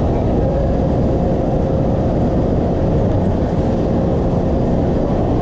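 Steady, loud rumbling noise inside a Taipei Metro (MRT) station, with a faint steady tone running through it.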